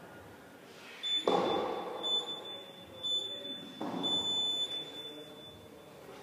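Gym wall timer beeping a high-pitched countdown: short beeps about a second apart, then a longer final beep. Two louder noisy bursts sound about one and four seconds in.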